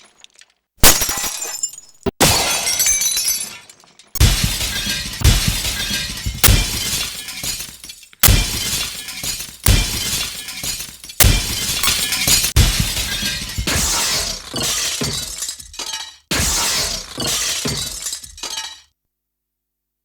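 Glass-breaking sound effects played one after another: about six separate shatters, each a sharp crash followed by tinkling shards, stopping about a second before the end.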